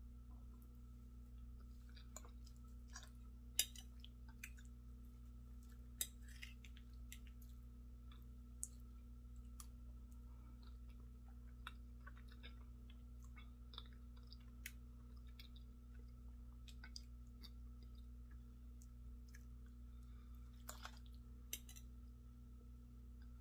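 A person quietly eating creamy grits with a fork: soft chewing with scattered sharp clicks and smacks, the loudest about three and a half seconds in, over a steady low hum.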